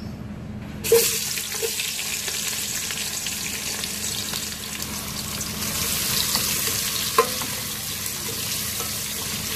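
Sliced onions going into hot cooking oil in a pan: a sudden loud sizzle starts about a second in and settles into steady frying while they are stirred with a wooden spoon. A single sharp knock comes late on.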